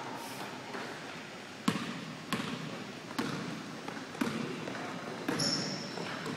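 Basketball bouncing on a hardwood gym floor as it is dribbled, about five separate bounces roughly a second apart, with a brief high squeak near the end.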